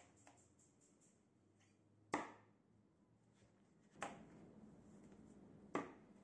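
Sharp knocks on a tabletop as the red handle grips taken off a pair of rusty tin snips, and the snips themselves, are set down and handled. There is a faint tap at the start, then three knocks about two seconds apart, the first the loudest.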